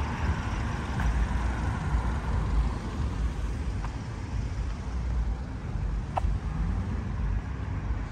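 City street traffic: cars passing with a steady low rumble, and a few faint ticks.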